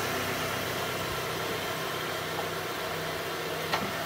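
Honda Element's 2.4-litre four-cylinder engine idling steadily, with a faint click about three and a half seconds in.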